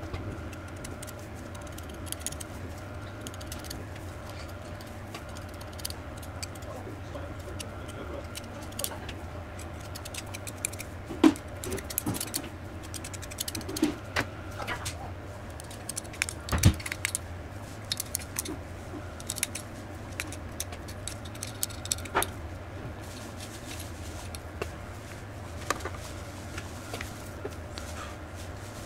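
Small metal parts of a Makita DTW281 impact wrench clinking and tapping as they are handled and packed with grease, with irregular light clicks and a couple of louder knocks, over a steady low hum.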